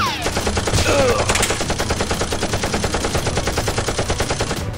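Automatic-gunfire sound effect dubbed over a Nerf blaster: a rapid, even string of shots that cuts off suddenly near the end. Falling whistles come at the start and again about a second in.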